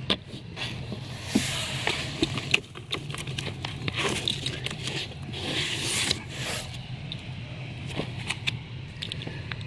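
Comic books and corrugated cardboard being handled as comics are pulled from a shipping box and stacked: irregular scraping and rustling of paper and cardboard with scattered light knocks, over a steady low hum.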